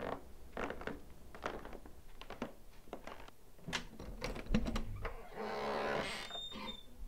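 A run of light clicks and taps, then a doorknob latch clicking about four and a half seconds in, and an interior door swishing open over about a second.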